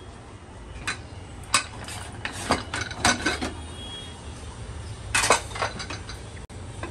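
Pressure cooker lid being opened and handled: a run of separate metal clicks and clinks, loudest in a cluster about five seconds in.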